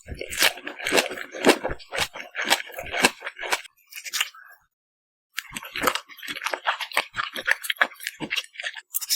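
Close-miked chewing and biting of salmon, with crisp, wet mouth clicks. There are two runs of chewing with a short pause about halfway.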